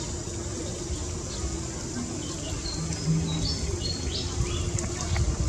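Outdoor ambience: a few short, high bird chirps in the middle of the stretch, over a steady high insect hiss and a low rumble.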